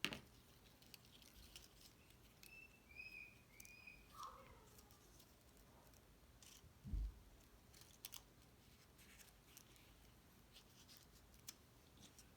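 Near silence with faint scattered clicks and taps of paper pieces being handled and glued down, a sharper click at the start and a soft thump about seven seconds in.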